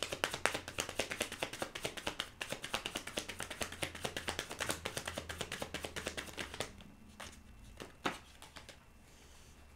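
A deck of tarot cards shuffled by hand: a quick, continuous patter of cards flicking against each other for about six and a half seconds, then it slows to a few separate taps, one sharper than the rest about eight seconds in.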